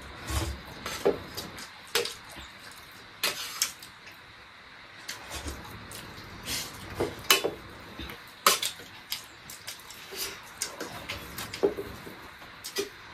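Metal spoons clinking and scraping against steel plates during a meal, in irregular sharp clicks every second or so.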